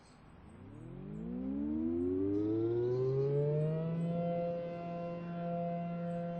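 ACA Allertor 125 electronic outdoor warning sirens starting the attack signal. The tone starts low, rises in pitch over about four seconds, then holds steady.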